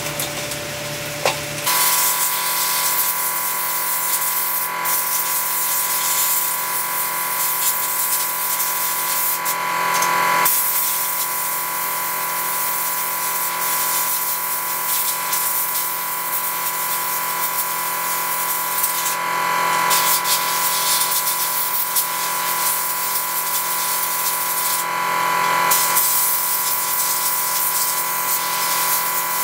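Electric air blower running steadily, a strong rush of air with a steady motor whine, blowing over wet camcorder circuit boards to dry them; the rush of air shifts in strength a few times as it is moved across the boards. It is preceded by a brief stretch of brushing.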